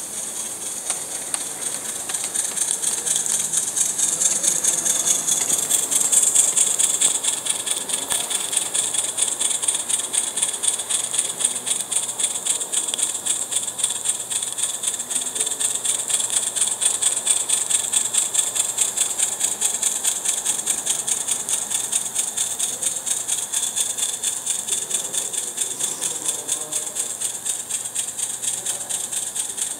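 Live-steam model locomotive (Accucraft Ruby) under steam, its exhaust chuffing in a rapid, even beat over a constant hiss of steam. It is loudest about six seconds in.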